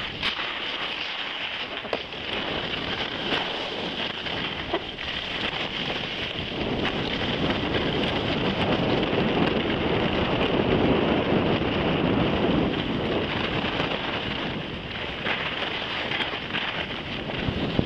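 Skis hissing and scraping as they slide over the snow during a run, mixed with wind noise on the microphone. It grows louder from about seven seconds in and eases off again a few seconds before the end.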